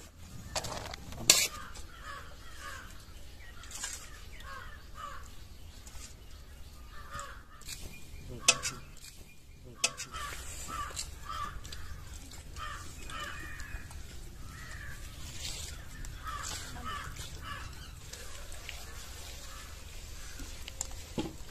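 Outdoor background of birds calling in short, repeated calls, with faint voices. A few sharp knocks stand out, the loudest about a second in and again about eight and a half seconds in.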